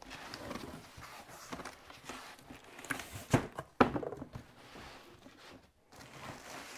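Cardboard box being opened by hand: flaps folded back and rubbing, with rustling and two sharp knocks a little past the middle.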